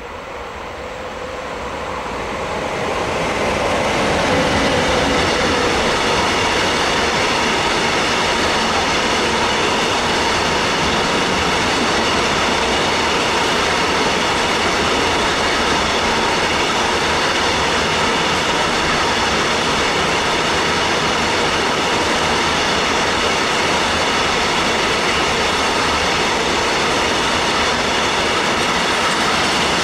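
Freight train passing at speed: a Bombardier Traxx class 186 electric locomotive draws near, growing louder over the first few seconds. Then a long rake of container wagons rolls by with a loud, steady rumble of wheels on rail and a steady whine over it.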